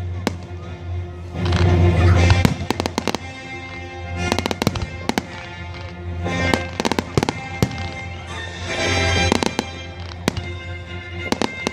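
Fireworks display: aerial shells firing and bursting in repeated sharp bangs and crackles that come in clusters, over music playing throughout.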